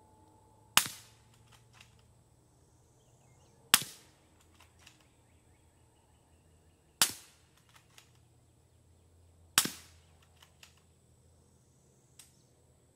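Four suppressed shots from a 300 Blackout rifle firing 220-grain subsonic rounds through a PWS BDE 7.62 3D-printed titanium suppressor in its long configuration, about three seconds apart. Each shot is a short, sharp report that dies away quickly, followed by a few faint clicks, with one more faint click near the end.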